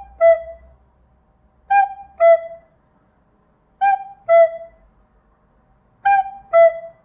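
A wind instrument imitating a cuckoo's call. It plays two falling notes, high then a little lower, four times about every two seconds.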